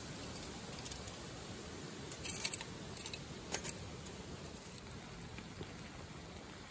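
Pot of leftover kimchi stew with rice and cheese heating quietly, the cheese melting, with a few light clicks about a second and two and a half seconds in.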